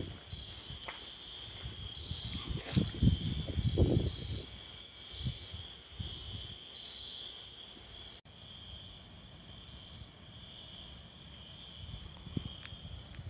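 Night insects chirping steadily in a high, pulsing chorus. A few louder dull thumps and rustles come about three to four seconds in.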